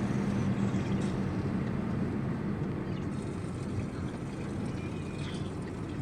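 A motor vehicle running with a steady low rumble; its engine drone fades over the first couple of seconds.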